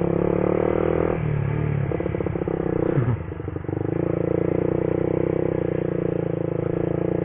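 Motorcycle engine running under way, its note shifting about a second in and dipping briefly around three seconds in before settling back to a steady pitch.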